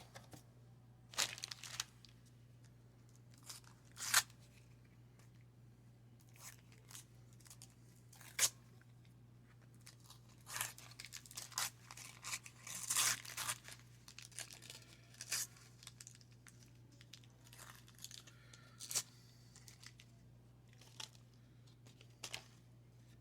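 The wax-paper wrapper of a 1990 Donruss baseball card pack being torn open and crinkled, in a series of short tearing and crackling bursts that bunch together about halfway through. A steady low hum runs underneath.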